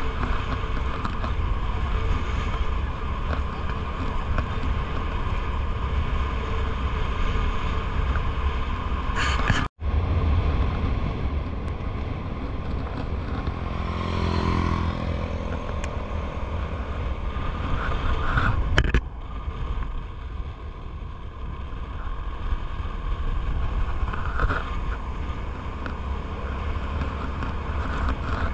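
Wind buffeting the microphone while riding a motor scooter, with the engine running underneath; an engine note swells and fades around the middle. The sound drops out for an instant about ten seconds in.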